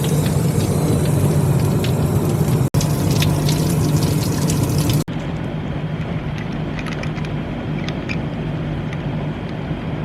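Steady vehicle engine and road noise, a low even hum with a rushing hiss and scattered small clicks and rattles. About halfway through the hiss cuts away abruptly, leaving the lower hum.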